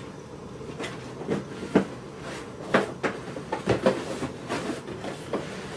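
Packaging being handled while accessories are taken out of a camera kit box: a string of irregular light knocks and rustles.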